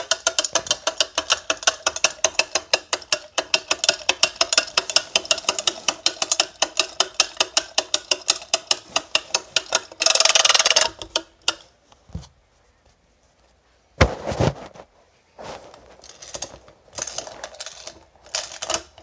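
Mavco Donald Duck Caballero wind-up toy running: its clockwork clacks in a rapid, even rhythm of about five clicks a second. About ten seconds in the clicking stops with a loud rustle of handling as the toy is picked up, followed by one sharp knock and a few fainter handling noises.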